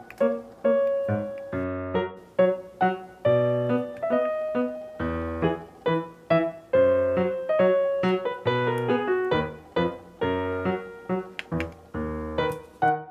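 Background piano music: a melody of struck notes over regularly repeating bass notes.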